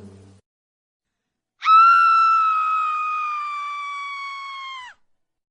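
A single long, high-pitched scream sound effect. It starts sharply about one and a half seconds in and is held for about three seconds, its pitch sagging slightly as it fades, then it cuts off abruptly.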